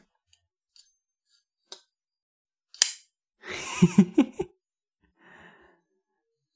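Sharp By Design Mini Tempest folding knife being flipped open: a few faint ticks, then one loud sharp click about three seconds in, a quick cluster of clicks and knocks a moment later as the blade breaks past the detent and snaps open, and a short soft rustle near the end.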